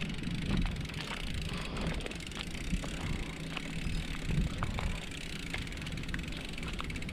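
Bicycle moving over a rough dirt road: a low rumble with scattered clicks and rattles from the bike.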